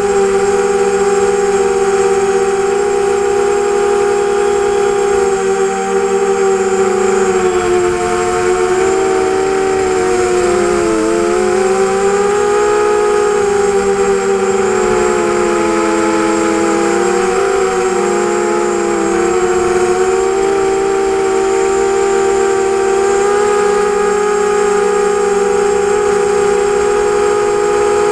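ZMR250 250-size quadcopter's brushless motors and propellers whining in flight, heard on board. Several steady tones drift apart and cross one another in the middle stretch as the motors change speed while it manoeuvres, then settle back near the end.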